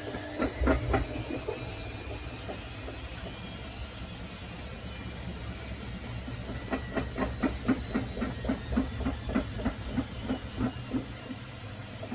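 Whirlpool washing machine on its spin cycle, spinning abnormally: a high motor whine that climbs in the first second or so and then slowly falls, over a low rumble. From about halfway through, the drum knocks rhythmically, about four knocks a second.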